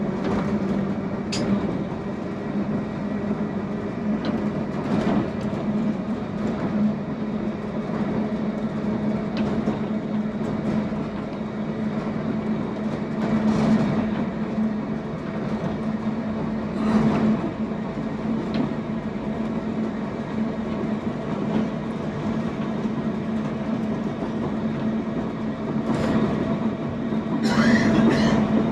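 Manx Electric Railway electric tramcar running along the track, heard from its open wooden front platform: a steady low hum under the running noise of the wheels, with a clatter over rail joints every few seconds and a louder burst of clattering near the end.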